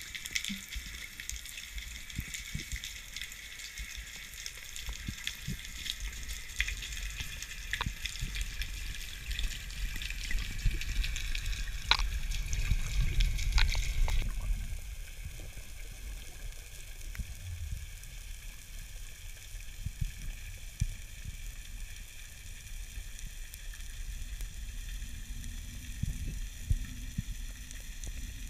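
Underwater ambience heard through a camera housing: a steady crackling hiss with scattered clicks over a low rumble of moving water. The hiss drops away abruptly about halfway through.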